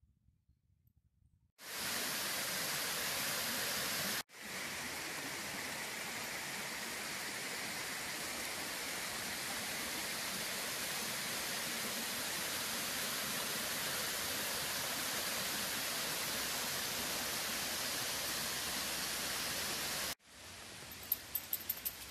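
Water pouring over a small stone weir: a steady, even rush of falling water. It starts abruptly about two seconds in after near silence, drops out for a moment a couple of seconds later, and cuts off near the end. A quieter hiss with a few light ticks follows it.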